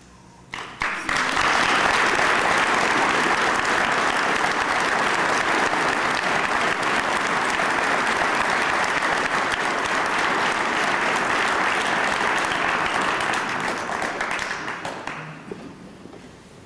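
A large audience applauding. The clapping breaks out about a second in, holds steady, and dies away near the end.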